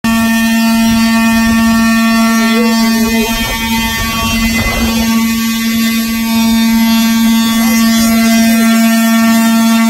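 Large hanging metal gong humming: one steady, loud drone with many overtones that neither fades nor changes pitch.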